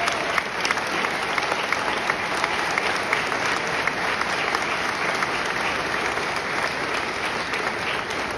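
Audience applause in a hall: many people clapping steadily, easing off slightly near the end.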